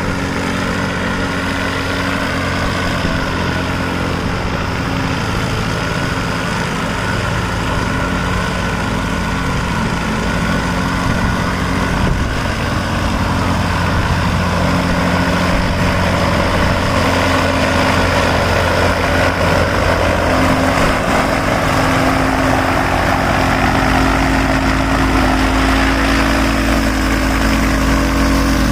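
Homemade light aircraft's Bajaj Pulsar single-cylinder motorcycle engine running steadily as the plane taxis on the ground, growing a little louder about halfway through.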